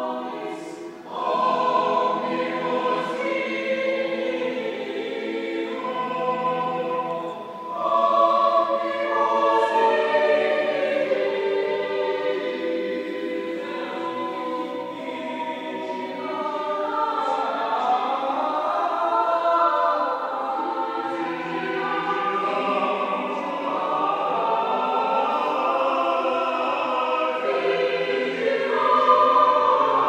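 Cathedral choir singing Evensong, several voices together in sustained phrases, with short breaks between phrases about a second in and again near eight seconds.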